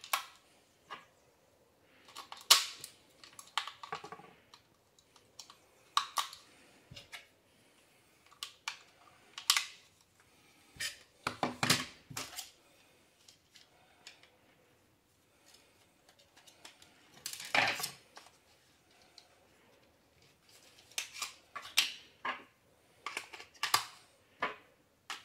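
Hands handling a plastic remote-control toy mouse and its controller on a tabletop while fitting AA batteries: scattered plastic clicks, taps and small rattles, with one louder clatter past the middle.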